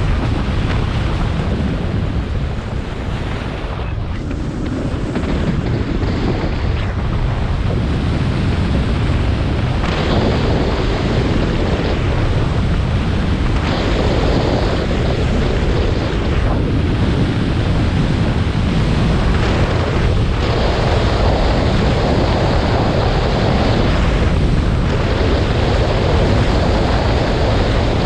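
Wind rushing over the action camera's microphone, with the snowboard scraping and hissing over the snow. The noise shifts in tone every three to six seconds as the board switches from one edge to the other through its turns.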